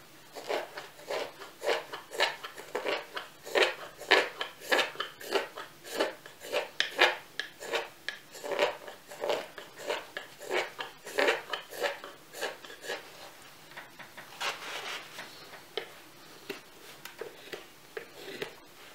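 Yakut knife cutting shavings from a green birch mug blank: a quick run of short slicing strokes, two or three a second, thinning out to occasional cuts after about fourteen seconds.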